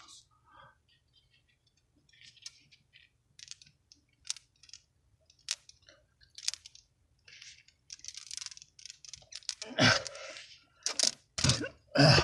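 Scattered small clicks, scrapes and rustles of hands and pliers working a baked-on fitting in a car's engine bay, with a few louder scraping, rustling noises near the end.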